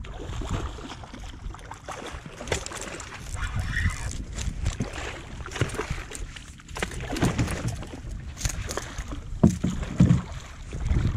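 A hooked fish thrashing and splashing at the water's surface as it is reeled up to the side of a boat, with two loud knocks near the end.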